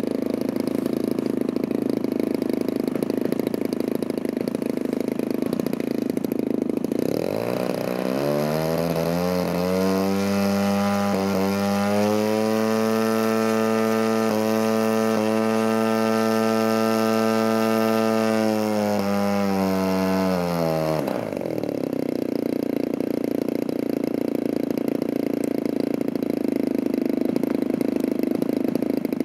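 Large radio-control aerobatic model airplane's engine idling on the ground, then opened up about a quarter of the way in, climbing in pitch to high revs, held steady for about ten seconds, and throttled back to idle at about two-thirds of the way through.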